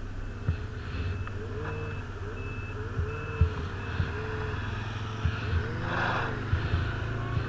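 ATV engine running at low riding speed, its pitch rising and falling with the throttle, with a few knocks as the machine rolls over bumps. Short high beeps repeat at an even pace through it, like a reversing alarm.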